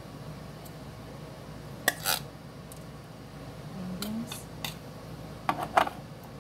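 Kitchen handling noise: a few sharp knocks and clinks as a tin can of green beans is handled and set aside on the counter, two about two seconds in and the loudest pair near the end, over a low steady hum.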